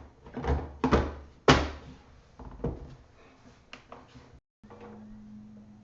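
Hard plastic knocks and clicks of a laptop battery being pushed in and latched into an Asus G74, the loudest about a second and a half in. After a brief break, a faint steady hum.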